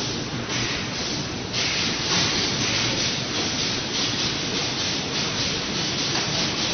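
Spiral fan guard welding machine running on a factory floor: a steady hiss that gets louder about one and a half seconds in, then pulses quickly, about four times a second.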